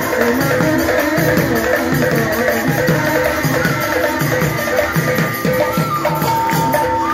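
Live devotional naam music: a two-headed hand drum beating a steady run of deep strokes that bend down in pitch, with cymbal ticks and held keyboard notes.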